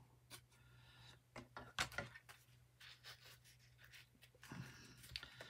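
Faint handling sounds: a few light clicks and rustles as scissors snip a white fabric ribbon and the ribbon is handled, the sharpest click about two seconds in.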